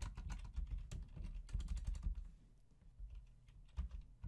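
Typing on a computer keyboard: a quick run of keystrokes for about two seconds, a short pause, then a few more key presses near the end.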